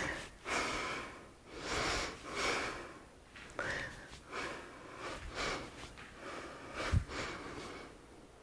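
A woman breathing hard in a steady rhythm, about one breath a second, while doing TRX bicep curls. A single soft low thump about seven seconds in.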